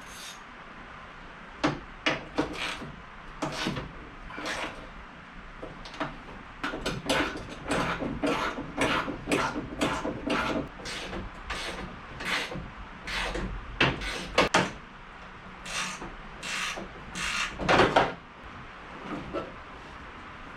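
Hand ratchet with a 13 mm socket clicking in short spells of rapid strokes, with pauses between, as the trunk lid bolts are worked loose.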